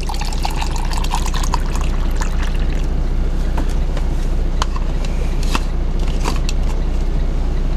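Water pouring from a plastic bottle into a plastic shaker cup, with a slightly rising filling note for about the first second and a half. Several sharp plastic clicks and taps follow as the shaker's lid is snapped on. A steady low hum runs underneath.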